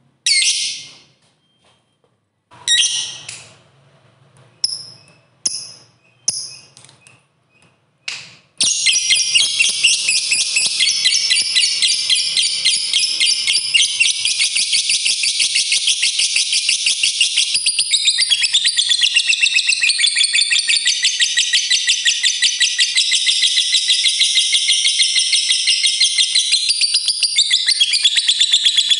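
A lovebird gives a few short, sharp chirps, then about eight seconds in breaks into a long, unbroken, very rapid chattering trill, the prized 'ngekek panjang' song of a fighter lovebird in full voice.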